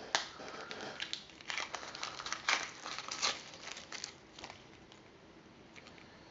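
Crinkling and rustling of packaging being handled, in irregular bursts that die away about four and a half seconds in.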